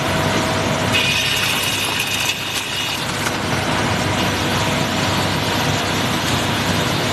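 5-axis CNC machining centre running: a steady mechanical noise from the spindle and cutting, with a higher whine from about one to three seconds in.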